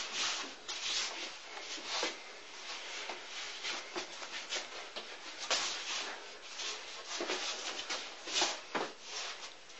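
Irregular brushing and light slapping of forearms and shirt sleeves against each other, with shuffling feet, from two people practising Wing Chun sticky hands (chi sao).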